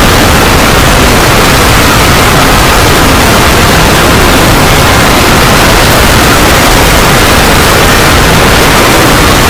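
Loud, unbroken, heavily distorted noise with no separate events in it: film soundtrack audio pushed into hard clipping.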